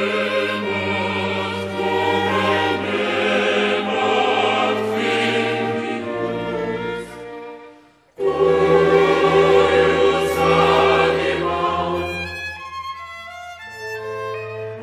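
Classical choral music with orchestra, the choir holding long sung chords. It dies away almost to nothing about eight seconds in, comes back at full strength, and thins to a quieter, sparser passage near the end.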